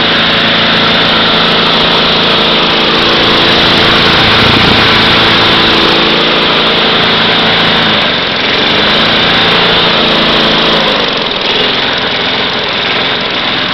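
Tecumseh single-cylinder lawn mower engine, converted to run on propane fed into its carburetor, running steadily. Its speed wavers about eight seconds in and it drops to a slower idle about eleven seconds in.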